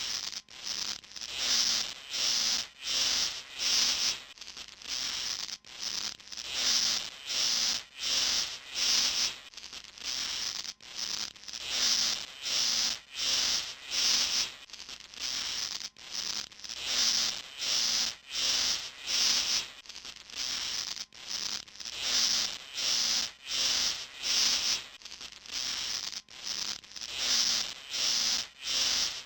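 Forest ambience filled by an unbroken rhythm of short, hissy animal chirps, about two a second, with no pause.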